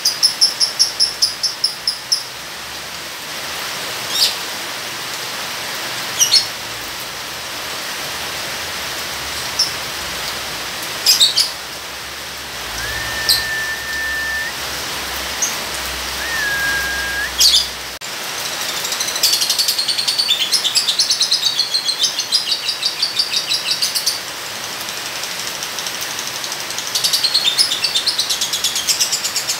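A lovebird chattering in long bouts of rapid, evenly repeated high chirps, about five or six a second, near the start, again in the second half and near the end, with single sharp chirps in between. Two short steady whistles come in the middle, over a steady hiss of rain.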